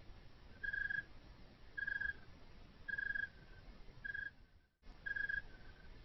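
An owl tooting: one short whistled note at the same pitch, repeated about once a second. The recording drops out for a moment about three-quarters of the way through.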